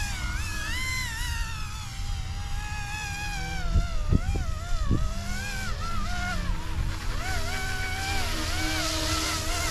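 YUXIANG F09-S RC helicopter's electric motors and rotors whining in flight, the pitch sliding up and down as the throttle and controls are worked. Low wind rumble on the microphone underneath, with a few gusty buffets around the middle.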